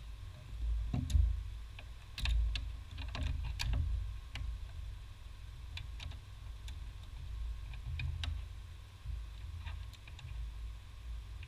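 Irregular light clicks and taps of hand tools and fingers against the metal and plastic of a car's brake master cylinder, its reservoir and brake-line fittings, busiest a couple of seconds in, over a low rumble.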